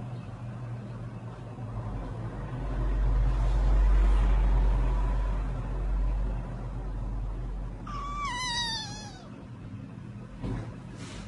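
A kitten gives one high, wavering meow about eight seconds in, falling in pitch over just over a second. Before it, a low rumble swells and fades in the first half, the loudest sound.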